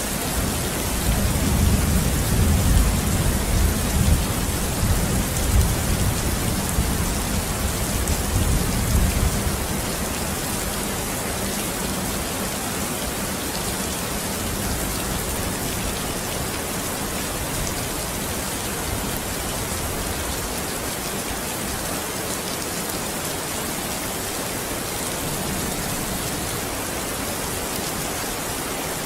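Steady rain falling and pattering on a surface, with a long low rumble of distant thunder from about a second in until roughly nine seconds in.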